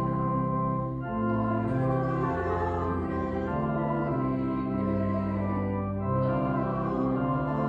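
Organ playing a hymn: sustained chords over a bass line that changes note about every second.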